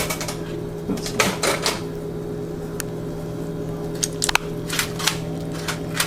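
Scattered light clicks and knocks of kitchen utensils handling the baked chicken, over a steady low hum.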